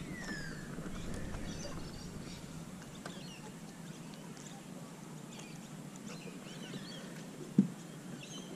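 Wild birds calling in the background with short falling whistles and chirps, over a low steady wash of ambient noise. A single sharp knock near the end.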